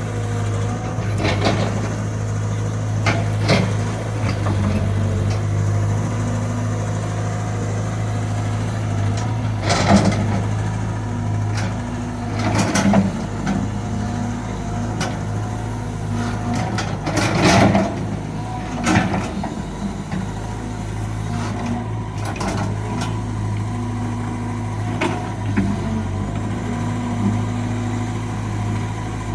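Caterpillar 320 GC excavator's diesel engine running steadily under work, with a series of irregular knocks and clanks from the machine at work, the loudest about a third and two-thirds of the way through.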